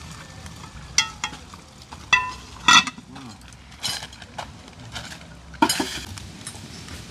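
A metal spoon clanking against a cooking pot while stirring: about five sharp knocks with a short ring, the loudest a little under three seconds in.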